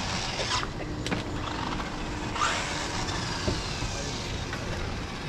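Two vehicle pass-bys: a rising-and-falling whoosh at the start and another about two and a half seconds in, with a faint falling whine trailing off after the second.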